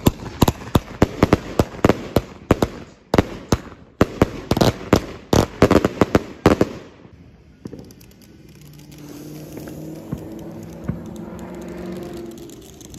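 A 25-shot consumer firework cake firing, with rapid sharp bangs of shells launching and bursting overhead, about three a second. The volley stops about seven seconds in and is followed by a quieter steady low hum.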